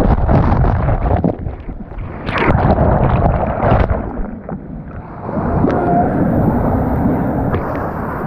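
Whitewater rushing and splashing loudly around a kayak running a rapid, with wind noise on the microphone and sharp splashes now and then.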